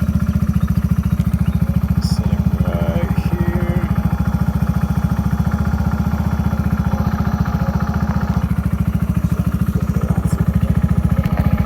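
Kawasaki Z125 Pro's single-cylinder four-stroke engine running through a LeoVince aftermarket exhaust at a steady, unchanging engine speed, with an even beat of exhaust pulses and no revving.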